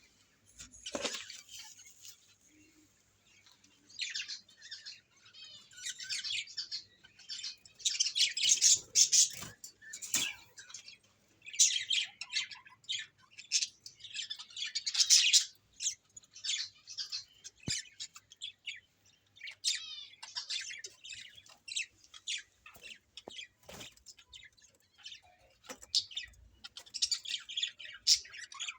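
Birds chirping: many short, high calls in clusters, almost quiet for the first few seconds, then near-continuous with brief pauses.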